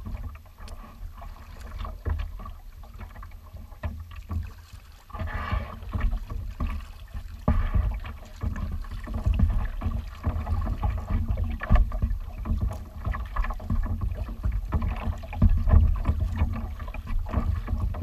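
Kayak moving across choppy water: water lapping and splashing against the hull, under a steady rumble of wind buffeting the microphone. The splashing grows louder from about five seconds in.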